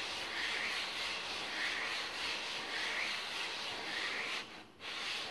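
A GX200 Honda-clone cylinder head's aluminium face being rubbed by hand on wet-and-dry sandpaper, a rasping hiss that swells and fades with each circular stroke. It is the final hand-lapping of the head face flat and smooth toward a mirror finish. The rasp stops briefly near the end and then resumes.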